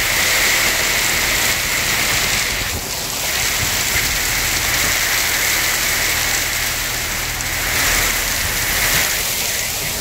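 Heavy hail mixed with rain pelting down, a loud, dense, steady noise.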